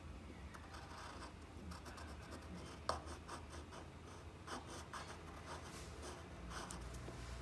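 Ballpoint-style pen scratching on paper in many short, quick strokes as a drawn eye is shaded in, with one sharper stroke about three seconds in.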